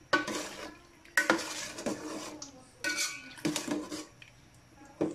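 A ladle stirring stew in a pot, scraping and clinking against the pot in four or five strokes, with a single sharp knock near the end.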